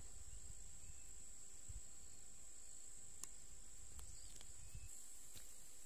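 Faint, steady, high-pitched insect chirring, with a few light ticks.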